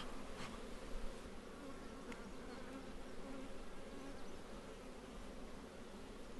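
A mass of honey bees buzzing steadily around an opened hive, with a couple of light knocks in the first second. The buzz comes from an agitated, defensive colony with a failing queen, bees the keeper calls already mad.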